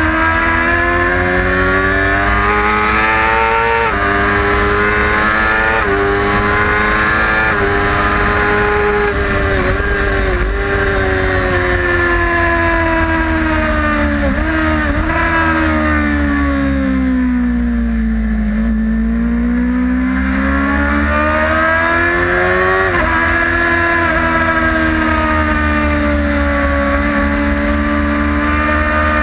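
Supersport racing motorcycle engine at full race pace, recorded on the bike: revs climb and drop back with several quick upshifts, fall away through the middle as the bike slows with a couple of short blips, then climb again to another upshift near the end. A steady wind rumble sits underneath.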